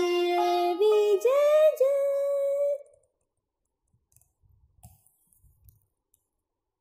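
Closing held notes of a Hindi anthem with singing, several long steady notes that step between pitches, cutting off abruptly about three seconds in. A few faint clicks follow.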